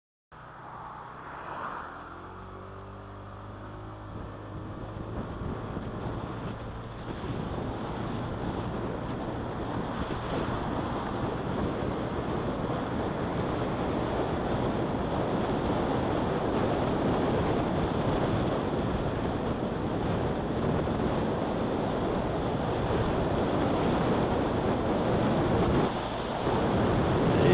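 Wind rush and road noise from a vehicle moving at highway speed, growing steadily louder as it speeds up, with a low steady engine hum in the first few seconds.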